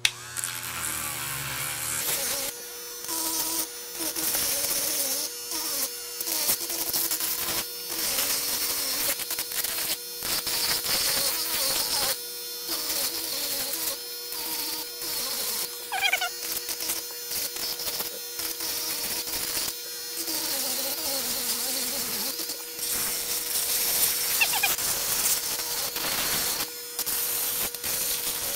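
Small handheld rotary tool, a Dremel-like sander, running with a steady motor whine from about two seconds in while it sands spray paint off plastic Rubik's cube pieces. A raspy grinding hiss comes and goes again and again as the piece is pressed to the spinning bit and lifted off.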